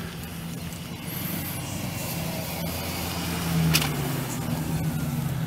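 Chevrolet 5.3L V8 engine of a pickup running steadily at idle, with a short sharp click about two-thirds of the way through.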